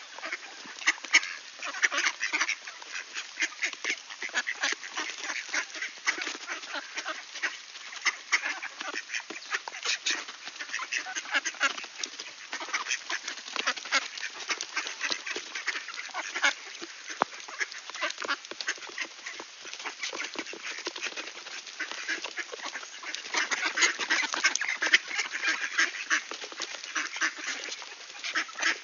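Mallard ducks feeding together: fast clicking and rattling of their bills dabbling in seed and a plastic tub of feed, with duck calls mixed in. It is busiest near the end.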